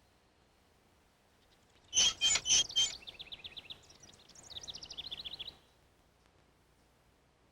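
Bird calls: four loud, sharp chirps, then a rapid high twittering trill lasting about two and a half seconds.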